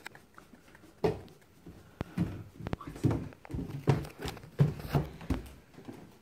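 Footsteps thumping down wooden stairs, about two a second, including a toddler's bare feet, with a few small sounds from the child's voice among them.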